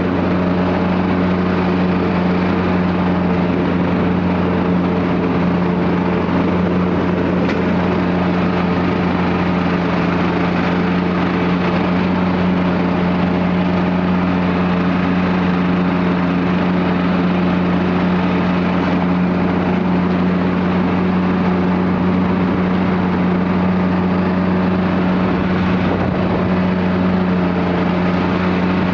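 Riding lawn mower's engine running steadily at a constant speed, a continuous low hum with no change in pitch or level.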